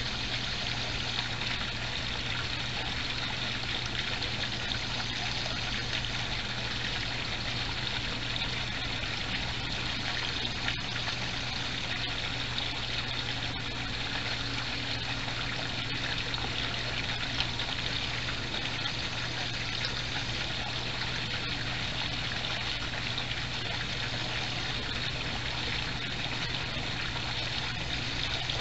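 Steady trickle of running water from a backyard koi pond, with a constant low hum underneath.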